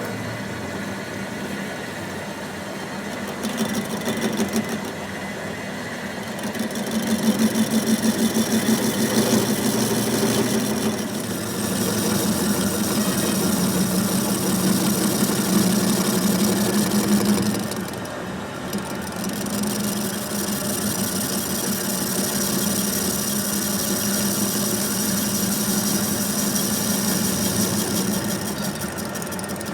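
A machine motor running steadily with a low hum and a mechanical rattle, louder through the middle and dipping briefly about two-thirds of the way in.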